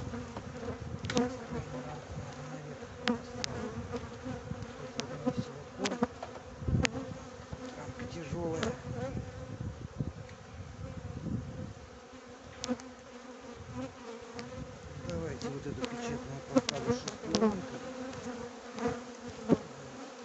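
Honeybees buzzing steadily around an open hive, with scattered sharp clicks and knocks throughout.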